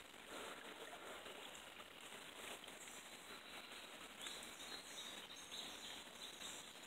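Quiet outdoor ambience of a still, wooded creek: a faint steady hiss with a few faint, short, high bird chirps about four to five seconds in.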